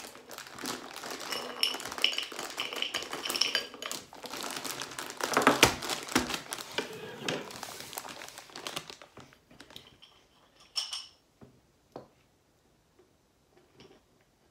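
Clear plastic bag of caramel-corn snack mix crinkling and rustling as it is handled, for about nine seconds, then a few scattered light taps and clicks as it is set down.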